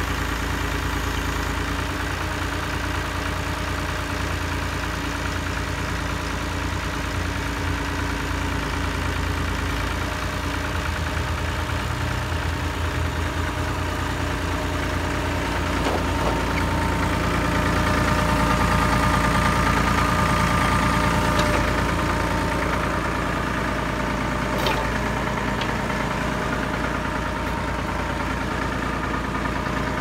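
Tractor engine running steadily, turning the backhoe's PTO-driven hydraulic pump. Past the middle it grows louder for a few seconds with a higher steady whine, and there are a couple of sharp knocks.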